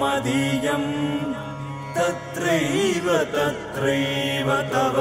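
Background music in an Indian devotional style: a slow, wavering sung melody, chant-like, over a steady drone.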